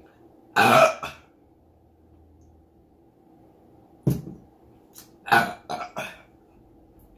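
A woman burping loudly: one long burp about half a second in, then a run of four shorter burps from about four seconds in.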